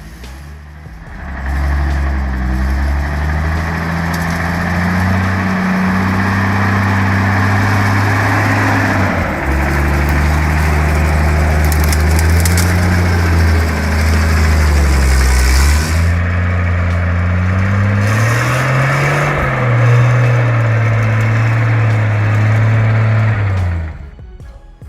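Star 660 army truck's engine working hard under load in mud, its pitch shifting as it is driven: it dips twice and climbs again near the end, with a rushing noise over it. It drops away shortly before the end.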